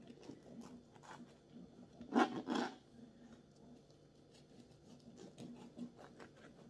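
A knife sawing through the crust of a freshly baked potato bread loaf, with soft scraping strokes and a louder double crunch a little over two seconds in.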